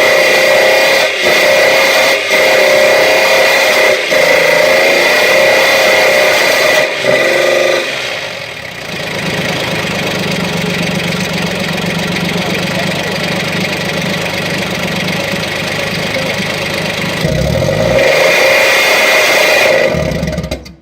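Ford engine running with no oil in it, held at high revs, dropping to a lower, steadier speed about eight seconds in, then revving up high again near the end before cutting out suddenly: the engine dying from oil starvation without blowing up.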